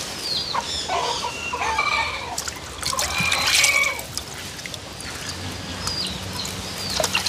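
Domestic chickens calling and clucking in a run of pitched calls over the first few seconds. Water sloshes in a pot as raw chicken pieces are rinsed by hand.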